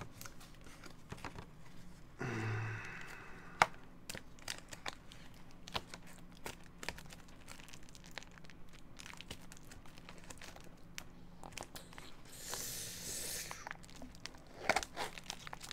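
Food packaging being handled and opened by hand: scattered small clicks and crinkles, with a rustling tear lasting about a second near the end.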